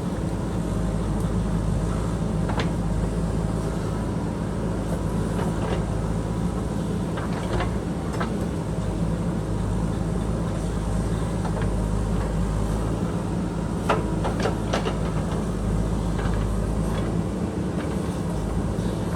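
JCB backhoe loader's diesel engine running steadily while it digs, with a few sharp knocks from the machine's working gear, the strongest about fourteen seconds in.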